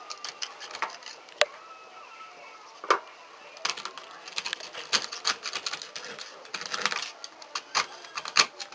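Irregular light clicks and taps of a small circuit board and tools being handled against a hard plastic lamp base. There are a couple of sharper knocks in the first three seconds, then a busier run of clicking.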